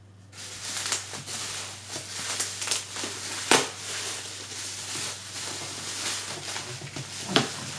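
Plastic packaging crinkling and rustling as it is handled, with two sharp knocks, one about three and a half seconds in and one near the end.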